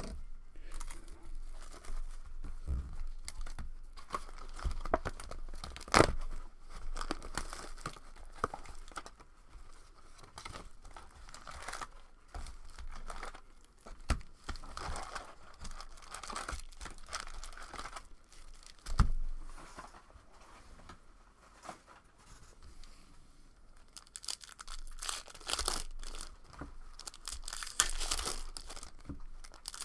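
Foil hockey card pack wrappers crinkling and tearing as packs are handled and torn open by hand, with a few sharp knocks along the way. The crinkling grows busier near the end.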